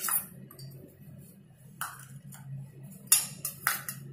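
Stainless steel bowls clinking against a steel kadai as chopped vegetables are tipped in: a sharp clink at the start, another a little before two seconds in, and two more close together after three seconds, over a low steady hum.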